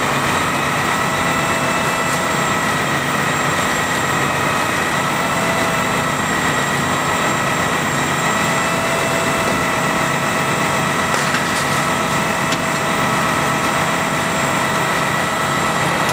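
Fire trucks' diesel engines running steadily at the fireground, with a steady high-pitched whine held over the engine rumble.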